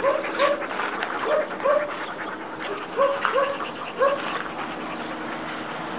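A dog whining in short, high cries, mostly in pairs, about seven in all.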